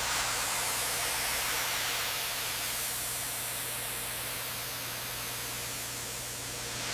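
Steady hissing spray of foam being applied under pressure, with a low hum underneath. It starts and stops abruptly.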